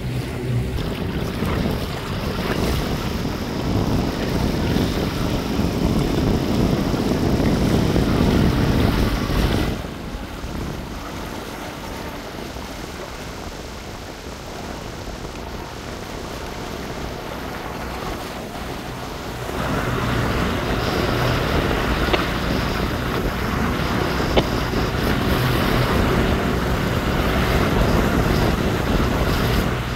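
A small powerboat's outboard motor running, mixed with wind buffeting the microphone and water noise. The sound drops back about ten seconds in and picks up again around twenty seconds.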